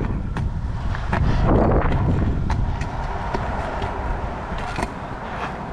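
Freestyle scooter's 110 mm wheels rolling over skatepark concrete, a steady rumble mixed with wind buffeting the camera, and a few sharp clicks as the wheels cross joints and cracks in the concrete.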